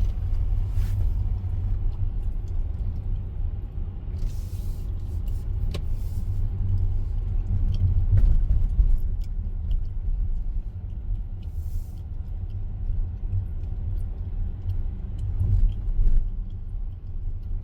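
Car driving: a steady low rumble of road and engine noise, with scattered light clicks and brief hissing rustles about four and about twelve seconds in.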